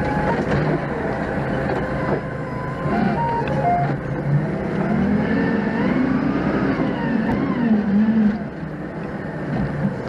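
Doosan 4.5-ton forklift's engine running as it drives, heard from inside the cab, its pitch rising and falling between about five and eight and a half seconds in. A few short beeping tones sound in the first four seconds.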